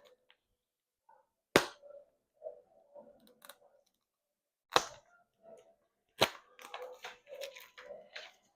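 A product package being handled and opened: three sharp snaps or knocks, with softer rustling and handling noise between them and busier handling near the end.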